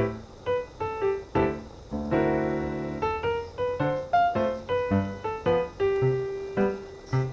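Background music: a keyboard melody of short, quickly fading notes, with a sustained chord about two seconds in.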